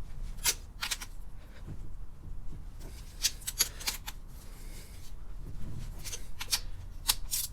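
Sharp clicks in small groups of two or three, from a wrench being worked on loose exhaust manifold nuts, over a low steady hum.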